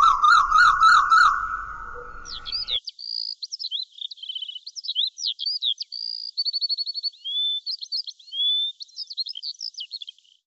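Birds calling: first a quick rising chirp repeated about four times a second over a light hiss, then from about three seconds in a songbird's varied high whistles, trills and short chirps.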